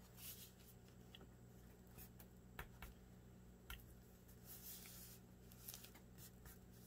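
Faint handling of paper: soft rustles and a few light clicks as hands fold and press a glued cardstock panel onto a journal page, over a low steady room hum.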